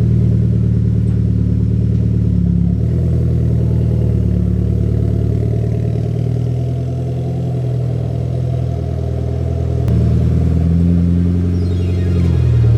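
Mitsubishi Lancer Evolution X's turbocharged 2.0-litre four-cylinder engine running steadily at idle on fresh oil, its note shifting slightly a few times.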